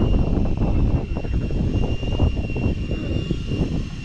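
Wind buffeting the microphone on an open boat at sea: a loud, gusty low rumble, with a thin steady high tone throughout.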